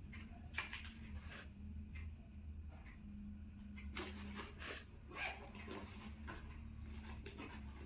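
A steady thin high-pitched whine over a low hum, with scattered light clicks and rustles of things being handled.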